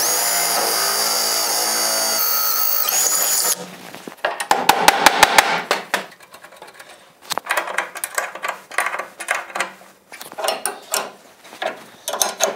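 Drill running steadily as it bores a bolt hole up through a wrought-iron brace into the wooden body frame, its pitch dropping a little about two seconds in, then stopping. A quick run of about six sharp clicks follows, then scattered metal clinks and knocks of carriage bolts, square nuts and a wrench being handled.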